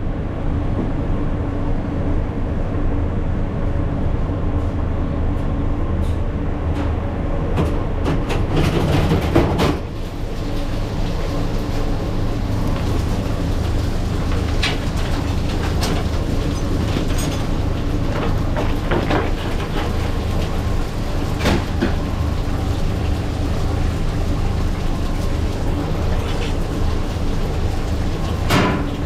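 A steady, loud machine hum with scattered clicks and knocks.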